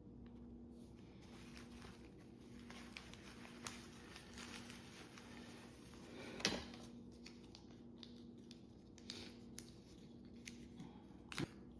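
Faint handling of small unboxed items and their packaging: light rustling and scattered small clicks, with a sharper click about six and a half seconds in and another near the end, over a low steady hum.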